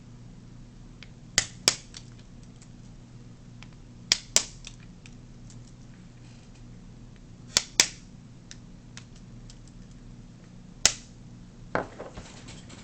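Bump key being struck in a Master padlock, sharp metallic clicks coming mostly in pairs, a round about every three seconds, the key pulled one notch out and under slight turning pressure. Near the end comes a softer clack and rattle.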